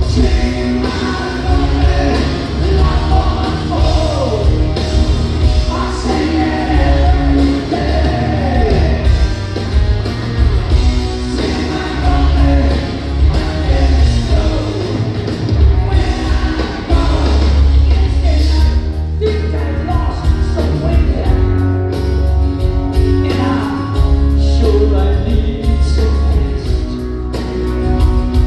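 Live rock band playing loudly, with electric guitars and a heavy low end under a male lead singer, heard from the audience in a large theater.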